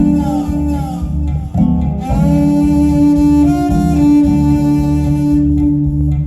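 Cello playing a bop-style jazz line: held bowed notes with sliding changes of pitch, over a steady plucked bass line.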